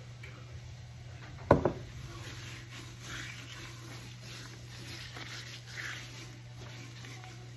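Hands rubbing dry seasoning into the skin of a raw turkey, a soft rubbing and rustling, over a steady low hum. A single sharp knock about a second and a half in is the loudest sound.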